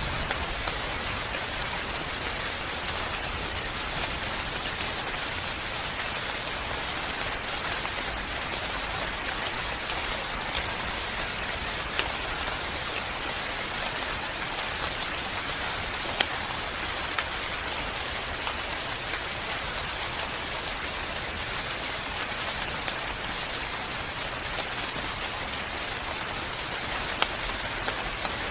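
Steady rain falling, a continuous hiss with occasional louder drops ticking on a surface.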